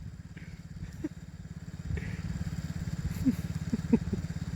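Small 110cc four-stroke engine of a mini kids' ATV running steadily at low revs, a fast even putter.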